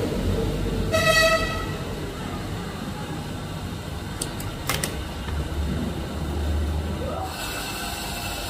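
A short horn-like toot about a second in, followed by a few light clicks and a low rumble.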